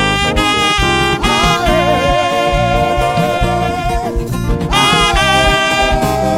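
Band music: a lead melody of long held, wavering notes, with a new phrase coming in near the end, over a full bass-heavy accompaniment.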